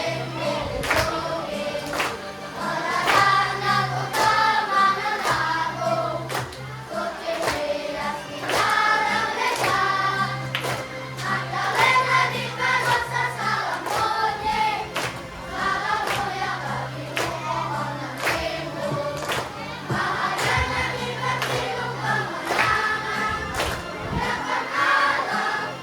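School children's choir singing together over backing music with a steady beat.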